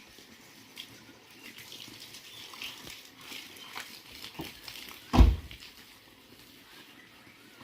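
Light scattered clicks and taps, then one heavy thump about five seconds in.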